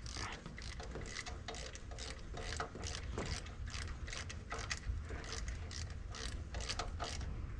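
Hand ratchet clicking as its pawl slips on the back-strokes while a new spark plug is run into the cylinder head of a Ford 300 inline-six. It makes a steady string of short clicks, about three or four a second.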